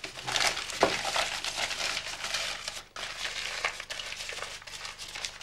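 Newspaper being crumpled and rustled by hand, a dense crackling that is loudest for the first three seconds and then goes on more softly.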